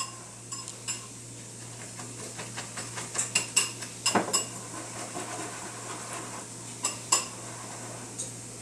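Utensil clinking and scraping against a mixing bowl while ingredients are stirred: scattered light ringing clinks, a quick run of them about three to four seconds in, then a few single clinks.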